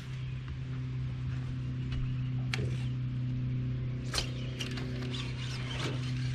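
Steady low hum of an electric bow-mount trolling motor, with a few sharp clicks and ticks over it.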